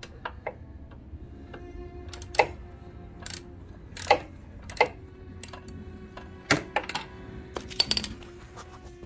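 Irregular sharp metal clinks and knocks of a socket and ratchet being worked on the oil drain plug of an 80cc mini bike, over steady background music.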